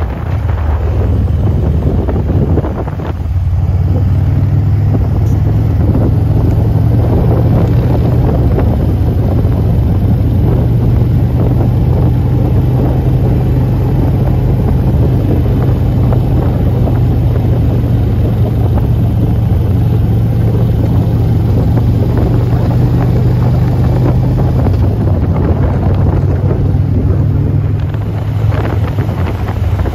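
Steady drone of a long stream of motorcycle engines passing, with wind buffeting the microphone.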